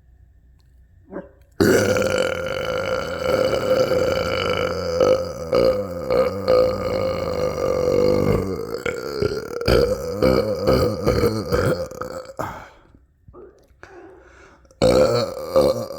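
A man belching: one very long, drawn-out burp of about ten seconds on a steady pitch, then a second, shorter burp near the end.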